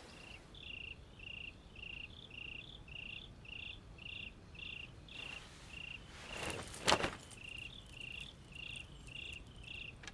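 Crickets chirping in a steady rhythm, about three chirps a second, with a brief knock or rustle about seven seconds in.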